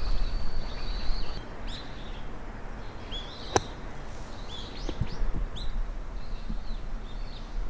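One sharp hit a little past halfway as a golf club swings through the sand of a bunker and splashes the ball out. Small birds chirp repeatedly throughout.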